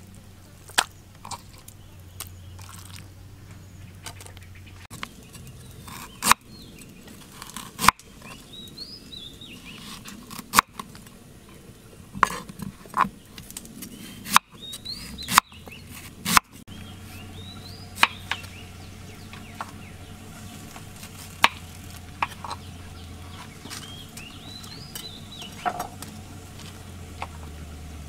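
Knife knocking on a wooden cutting board at irregular intervals as ginger and other ingredients are sliced. Short bird chirps come in several times in the background.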